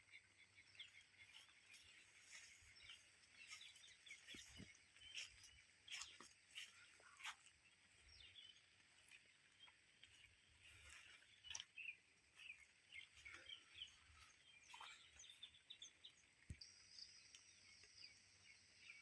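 Faint outdoor ambience of many small birds chirping in short, scattered calls, with a steady high insect drone behind them.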